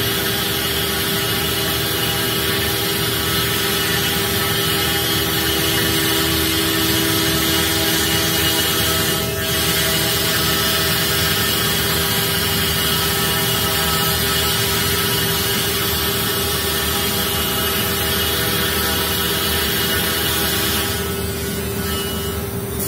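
Comeva nesting CNC router's spindle running steadily while its cutter mills a circular groove in chipboard. There is a brief dip about nine seconds in, and near the end one of the steady tones stops and the sound eases slightly.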